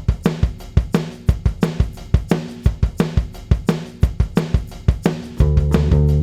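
Music opening on a drum beat of about three hits a second, with cymbals; sustained bass and chords join in a little after five seconds in.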